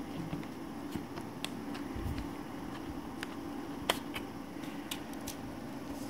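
Faint small clicks and taps as a DDR3 SO-DIMM RAM module is released from its laptop slot's spring clips and pulled out, with one sharper click about four seconds in, over a faint steady hum.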